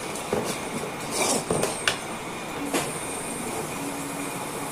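Chopped onions frying in hot oil in an aluminium kadai, with a metal spatula scraping and knocking against the pan as they are stirred.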